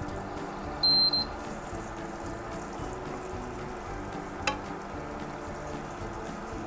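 Background music over a wooden spatula stirring chicken liver and vegetables in a non-stick wok. About a second in comes a short, loud, high electronic beep, and a little past four seconds one sharp clack of the spatula against the pan.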